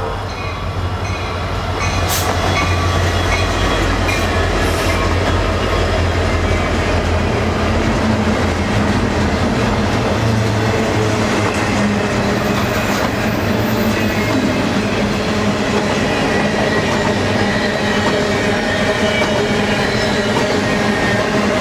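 Union Pacific diesel locomotives passing close by with a low engine drone for the first seven seconds or so, then the steady rumble and clatter of mostly empty double-stack well cars rolling past. A sharp knock about two seconds in.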